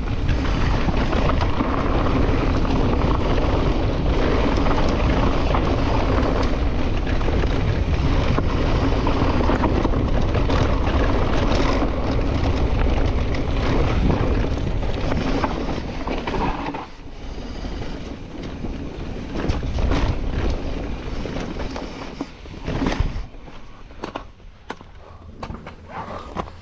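Mountain bike riding down a dry dirt trail: wind rushing over the microphone with tyre and bike noise underneath. It gets quieter and more uneven about two-thirds of the way through, with a couple of brief louder surges.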